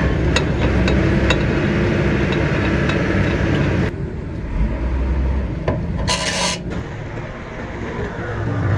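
Rasping, scraping metalwork noise, dense for the first four seconds and then looser, with a short sharp hiss about six seconds in.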